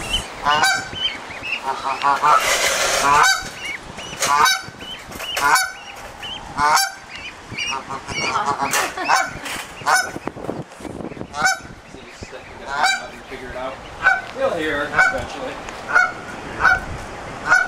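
Canada goose honking again and again, short honks about once a second with a few brief pauses.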